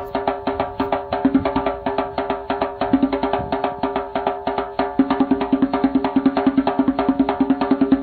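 Background music with a fast, steady percussion beat.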